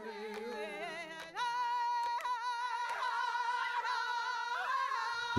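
Film score music: a lower held tone slides slowly downward, then about a second in a wordless high voice holds one long note with vibrato.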